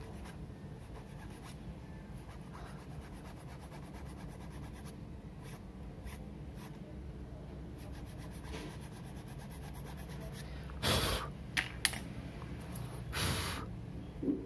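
Faint scraping of a flat metal blade against a thin plastic peg as the peg is spun to shave it round, over a steady low hum. About eleven and thirteen seconds in, two short breathy rushes of air.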